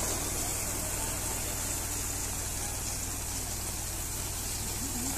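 Steady rushing hiss of harvested chickpeas pouring and sliding out of a tipped tractor trailer onto a tarp, with a low steady engine hum underneath.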